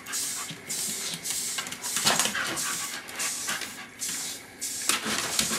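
Staffordshire bull terrier sniffing at close range, a run of short noisy sniffs with brief pauses between them.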